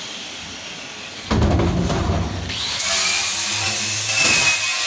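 Electric angle grinder with a wire cup brush scrubbing the steel wall of an ice block can, a scraping hiss over a thin high motor whine. About a second in it suddenly gets louder and rougher for about a second, then settles into steady running.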